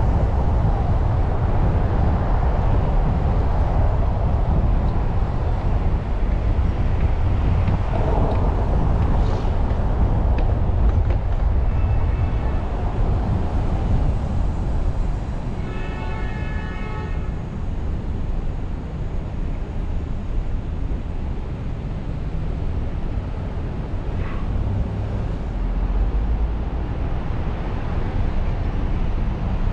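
Steady low rumble of city traffic and road noise from a car driving along a street. About sixteen seconds in, a short pitched tone sounds for about a second and a half.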